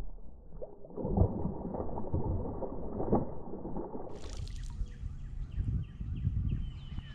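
Water splashing as a fish blows up on a topwater rat lure at the surface. The loudest splashes come about a second in and again around three seconds in.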